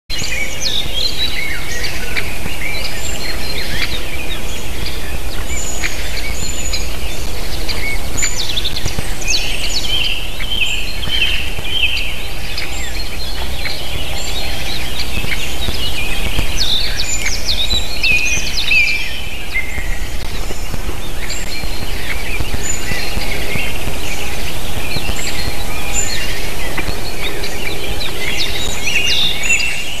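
Many songbirds singing and calling at once, a dense run of short chirps and warbling phrases, over a steady low rumble.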